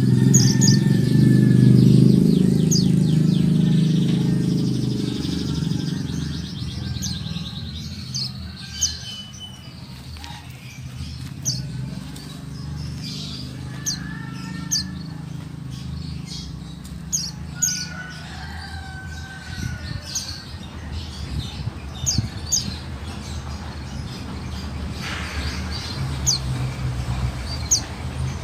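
Female white-eye (pleci buxtoni) calling: short, high, thin chirps repeated at irregular intervals, with a few softer lower whistles between them. A low engine rumble fades out over the first several seconds.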